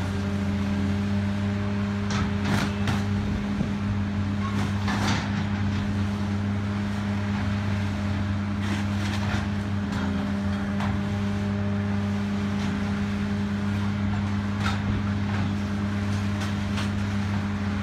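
Caterpillar 330D hydraulic excavator running steadily under load as it tears into the building, with scattered crashes and clatter of falling brick and sheet metal debris.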